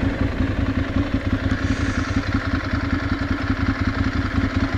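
Ducati Monster 796's air-cooled L-twin engine running at steady, moderate revs while the motorcycle is ridden, a rapid, even pulsing.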